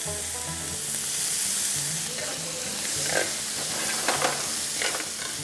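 Shredded chicken sizzling in oil and chili flakes in a nonstick grill pan as it is sautéed. It is stirred with a few short scrapes of the utensil against the pan in the second half.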